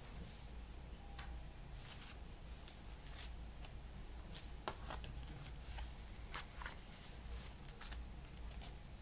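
Hands handling a folding cardboard mini-LP CD sleeve: scattered light clicks, taps and brief rustles of card and paper, over a faint low hum.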